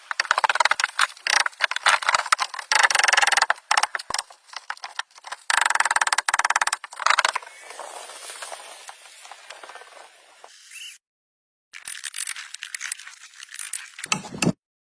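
Rapid scraping and rattling clatter in bursts, with two longer stretches of continuous scraping, broken by abrupt cuts to silence.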